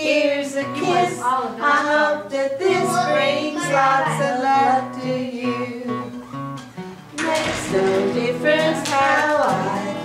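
A group of people singing a song together in a casual singalong, with a short lull in the singing shortly before seven seconds in.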